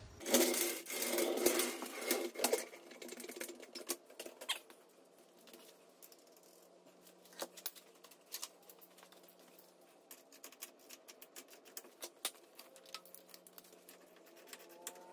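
A steel floor jack being pulled out across a concrete floor makes a rattling, scraping noise for about the first two and a half seconds. Scattered light clicks and ticks of hand tools and metal parts follow.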